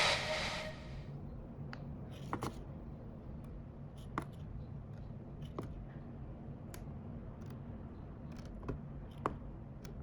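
Scattered small sharp clicks and taps, about eight of them at uneven intervals, over a quiet room hum, as of small objects being handled on a work surface. Background music fades out in the first second.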